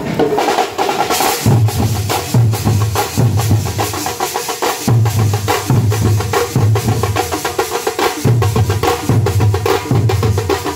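Tamate frame drums beaten with sticks in a fast, driving rhythm: dense sharp strokes over a deep beat about twice a second, which comes in about a second and a half in.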